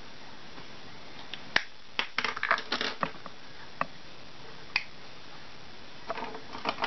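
Scattered small clicks and crackles over a steady hiss: a sharp click, then a quick cluster of crackles about two seconds in, two single clicks, and another short cluster near the end.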